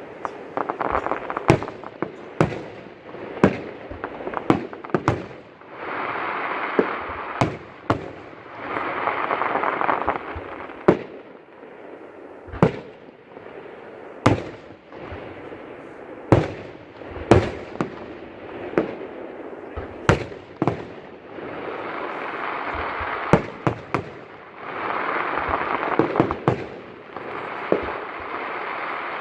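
Aerial fireworks bursting: dozens of sharp bangs at irregular intervals, with several stretches of dense noise lasting about two seconds each.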